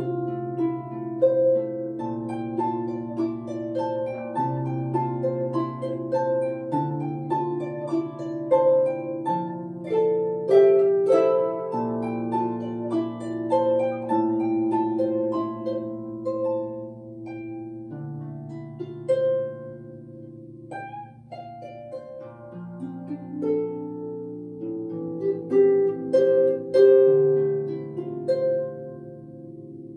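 Solo harp, plucked by hand: a melodic line of ringing notes over lower bass notes that change every couple of seconds, the strings left to ring on.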